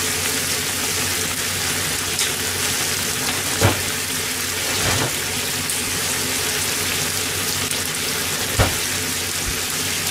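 Food deep-frying in a pot of hot oil: a steady sizzle, broken by a few sharp pops, the clearest about a third of the way in and again near the end.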